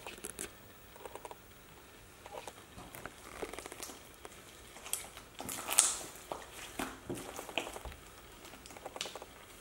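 Green slime being stretched, squished and pressed by hand in a ceramic dish: irregular sticky squelches and crackles, with a louder squelch about six seconds in.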